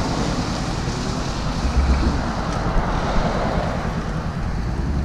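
Motorcycle engine running steadily at low speed, with wind rumbling on the microphone.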